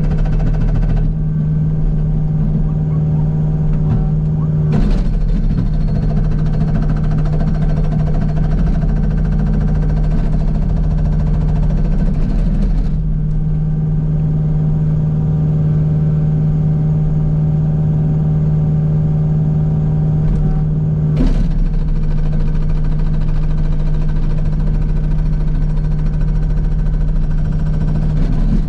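Kubota U55 mini excavator's diesel engine running at a steady speed, with two sharp knocks, one early and one near the end.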